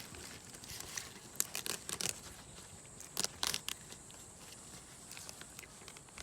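Dry fallen leaves crunching and crackling underfoot in short irregular clusters, the sound of steps through leaf litter on a forest trail.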